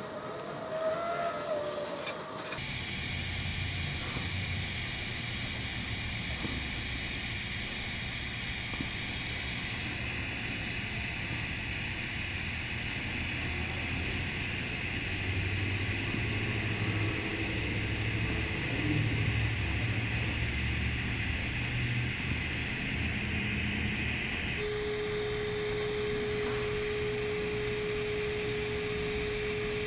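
TIG welding arc on steel pipe during the hot pass at about 150–160 amps: a steady hiss with a low hum under it, coming up after a quieter couple of seconds. Near the end a steady single tone joins in.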